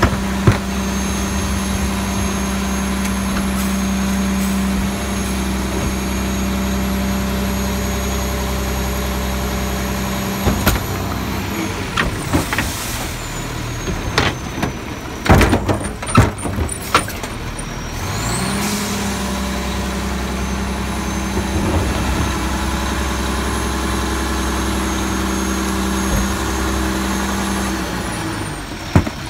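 Bridgeport Trinity side-loader garbage truck running its hydraulics at raised engine revs, with a steady high whine. In the middle the revs drop and a yard-waste cart is dumped into the hopper with a series of knocks and bangs. Then the engine revs up again for the packer cycle and winds down near the end.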